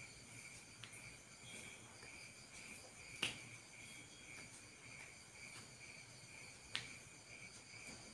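Crickets chirping, a faint steady high pulsing trill, with two sharp clicks, one about three seconds in and one near seven seconds.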